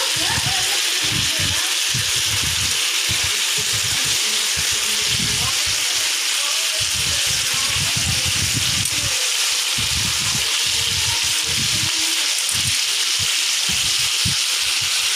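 Marinated chicken pieces sizzling on a ridged electric grill pan: a steady, even hiss of the juices and sauce frying.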